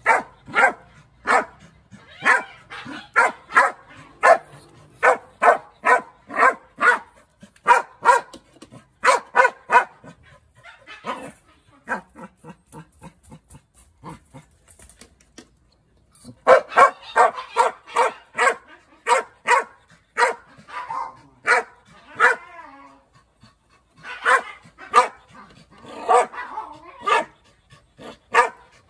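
A dog barking in runs of sharp barks, about two a second, at a rodent caught in a wire cage trap. The barking falls away for a few seconds in the middle, then picks up again.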